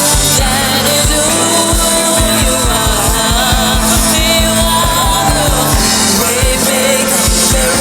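Gospel praise song: a singing voice carrying a melody over a band with a steady drum beat and bass.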